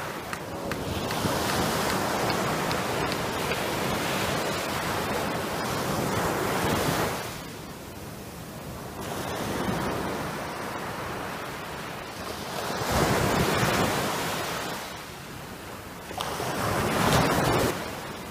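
Small sea waves breaking and washing up a sandy beach, the surf hiss swelling and fading in surges every few seconds.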